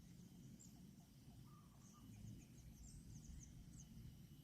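Near silence: faint outdoor background with a run of faint, quick high chirps about two to four seconds in.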